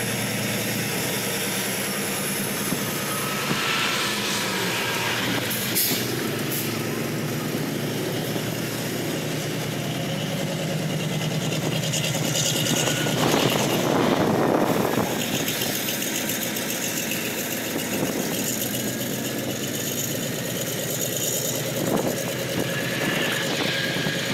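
Diesel freight locomotives running as a train passes below, a steady engine drone with the noise swelling louder about halfway through.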